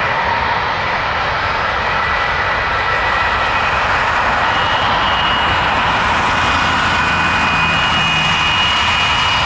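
The four CFM56 turbofan engines of a Douglas DC-8-72 running steadily as the jet taxis and turns on the runway: a continuous rush with a high whine, and a second, higher whine comes in about halfway through.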